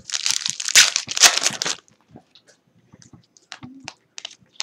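Crinkling, tearing of a foil trading-card pack wrapper being opened, lasting about two seconds, followed by a few light ticks.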